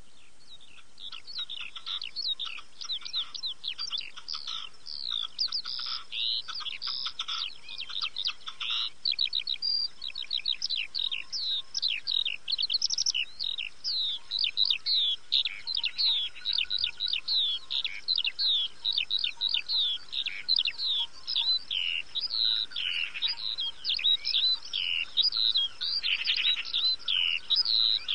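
Many small birds chirping and twittering in a dense chorus of rapid, high, mostly downward-sweeping notes, starting about a second in.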